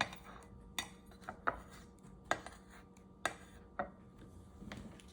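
Small metal tools and parts handled on a soldering bench, giving about eight light, irregular metallic clinks and taps.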